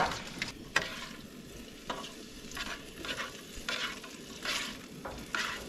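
Small potatoes frying in oil in a pan, sizzling steadily, while a spatula scrapes and stirs them in about eight short, unevenly spaced strokes.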